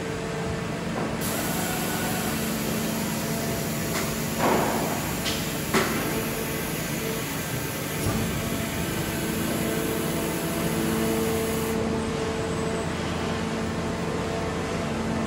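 Steady hum of factory machinery, with a brief noisy burst about four and a half seconds in and a sharp click just before six seconds.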